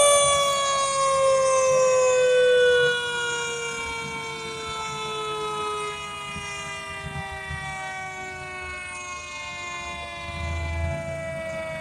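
Fire truck's mechanical siren winding down: one long tone that falls slowly in pitch and fades after being wound up just before, with a low rumble of the passing trucks underneath.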